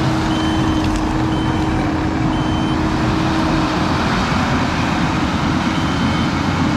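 Skid steer's diesel engine running hard with a steady drone of machinery while working a tree shear, and its reverse alarm beeping about once a second: three beeps in the first few seconds, then one more near the end. A steady hum in the machine noise stops about four seconds in.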